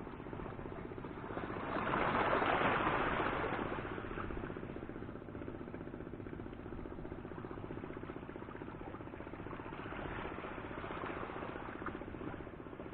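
Shallow seawater lapping and sloshing around a camera sitting at the water's surface, with a louder surge about two seconds in and a softer one near the end.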